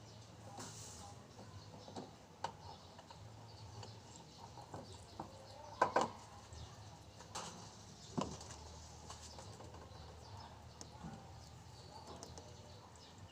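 Scattered light clicks and taps of hand work on parts and tools, with a few louder knocks about six and eight seconds in, over a faint low hum.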